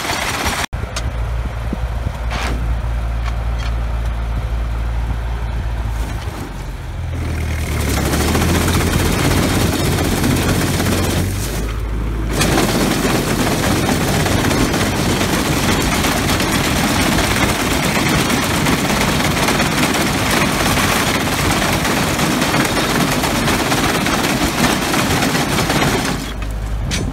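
A 1952 Ford 8N tractor's four-cylinder engine running steadily under the power-take-off load of a McCormick Deering reaper binder. From about eight seconds in, the binder's own loud, rapid mechanical clatter takes over, briefly easing around twelve seconds.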